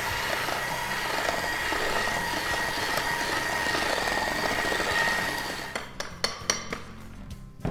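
Electric hand mixer running steadily with a thin whine as its beaters churn chocolate batter in a glass bowl. It winds down about five and a half seconds in, followed by a few sharp clicks and knocks.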